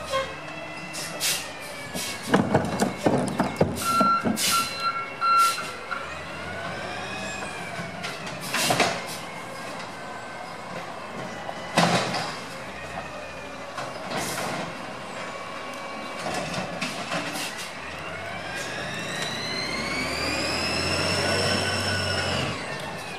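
Amrep HX450 automated side loader on a 2013 Peterbilt 320 LNG garbage truck emptying a green waste cart: the hydraulic arm whines up and down, with repeated bangs and knocks as the cart is shaken out and four short beeps. Near the end a rising whine builds as the natural-gas engine revs and the truck pulls away.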